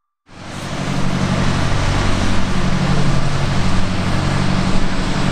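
Piper PA-28R-201 Arrow's four-cylinder Lycoming piston engine and propeller running steadily as the light aircraft rolls on the runway. The sound fades in shortly after the start and then stays even.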